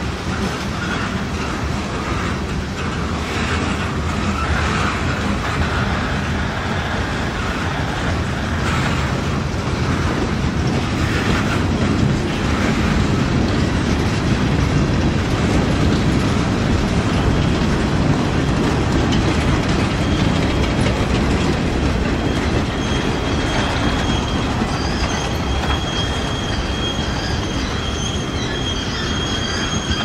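Freight train cars, covered hoppers and boxcars, rolling past at close range with a steady rumble and clatter of wheels on the rails. Past the two-thirds mark a thin, steady, high wheel squeal sets in and holds.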